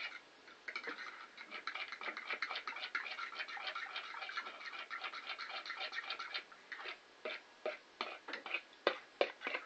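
Fork beating a raw egg in a plastic bowl: fast, steady clicking of the fork against the bowl, which breaks after about six seconds into slower, separate taps.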